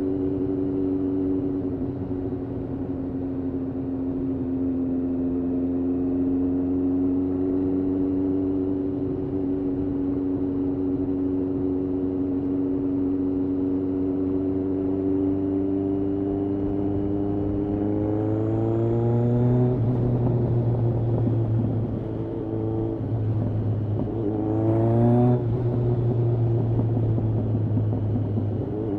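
Kawasaki ZRX1200R's inline-four engine, breathing through Yoshimura TMR-MJN carburetors, running at steady revs, then climbing slowly and dropping sharply about twenty seconds in, with a second quick rise and drop about twenty-five seconds in.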